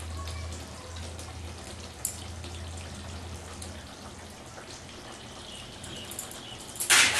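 Chicken rezala gravy simmering in a pot, a soft bubbling and dripping, with one short loud clatter near the end.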